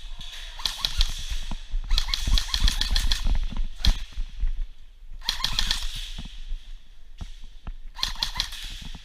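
Airsoft guns firing in rapid bursts: four runs of quick, evenly spaced clicking shots, each lasting about a second, with short pauses between.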